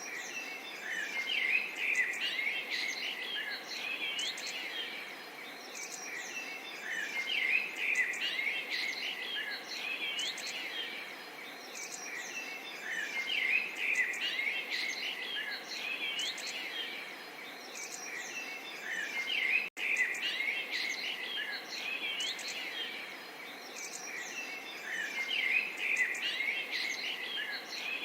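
Small songbirds chirping and twittering in busy bursts that swell about every six seconds, over a faint steady babble of flowing water. The sound drops out for a split second about twenty seconds in.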